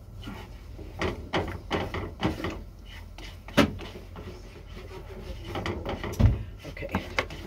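Silicone spatula scraping and tapping in a nonstick frying pan, stirring scrambled eggs, in short irregular strokes. A sharp knock comes about three and a half seconds in and a dull thump about six seconds in.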